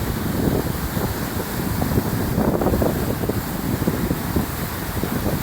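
Wind buffeting the microphone in steady, irregular gusts, over the wash of sea surf on a beach.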